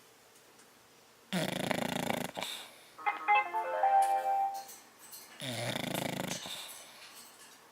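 A sleeping bulldog snoring: two snores about a second long, some four seconds apart. Between them comes a brief run of musical notes stepping down in pitch, the loudest sound here.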